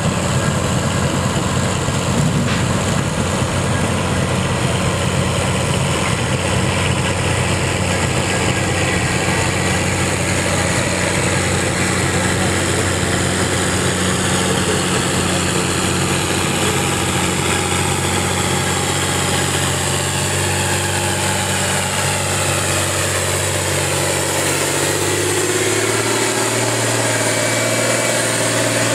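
John Deere diesel farm tractor pulling a weight-transfer sled, its engine running hard and steady under load. About 25 seconds in, the sound changes to another John Deere diesel tractor running close by.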